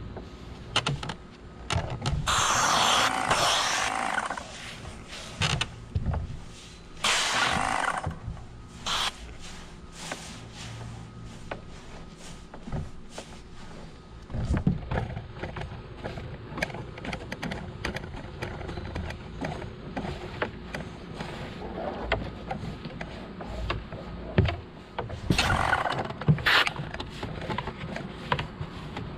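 A long-handled stain brush swishing across wooden stair boards in three bursts of bristle scrubbing, the longest about two seconds, among scattered knocks and footsteps on the wooden stairs.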